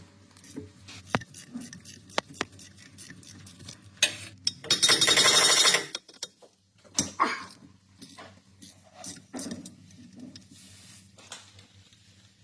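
Metal hand tools clinking and knocking in scattered single clicks, with one loud hiss lasting about a second and a half a little before the middle.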